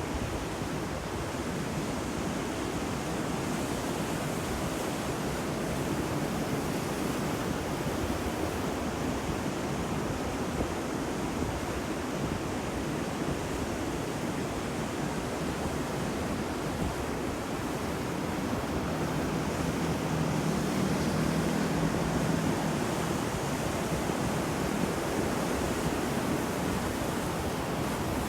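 Ocean surf washing ashore in a steady, dense rush of waves, swelling a little about two-thirds of the way through.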